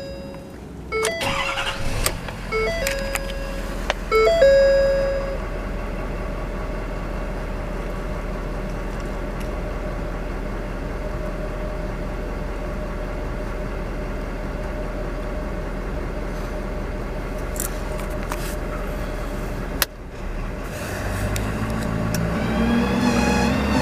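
Dashboard warning chime dinging several times in the first few seconds, then a steady low hum. About 20 seconds in the truck's 6.7 L Power Stroke V8 diesel cranks and starts, its note rising as it settles into idle.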